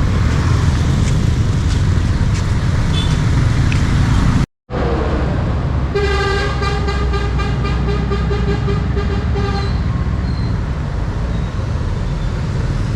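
A bus running along the road, with a steady engine and road rumble. About six seconds in, a vehicle horn sounds for nearly four seconds with a rapid pulsing.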